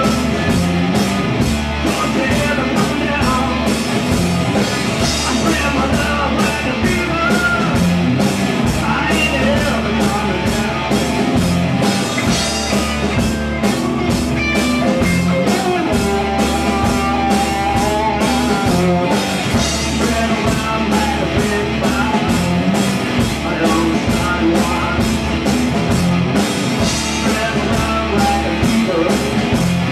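A rock band playing live: electric guitars and a drum kit keeping a steady beat, loud throughout.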